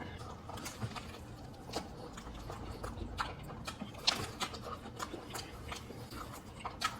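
Close-miked eating sounds: irregular small clicks and crunches from chewing and handling food, a few to each second.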